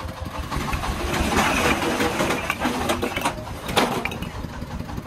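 The 24-horsepower single-cylinder diesel engine of a công nông three-wheeled tipper truck chugging steadily while bricks slide off its raised dump bed and clatter onto the pile. The loudest brick clacks come a little past halfway.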